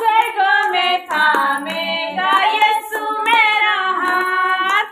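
A voice singing a Hindi Christian devotional song in long, gliding phrases.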